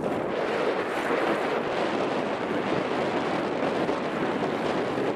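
Steady wind buffeting the microphone of a hand-held camera on a moving bicycle, a continuous rushing noise with no let-up.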